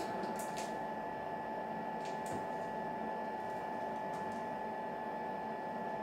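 Steady electrical or machine hum with a thin constant whine, and a few faint light crinkles and scrapes in the first half as a stiff fiberglass nose shell is shifted in its mold.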